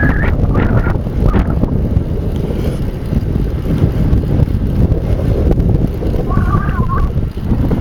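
Wind buffeting the microphone of a camera carried on a moving bicycle: a loud, steady low rumble.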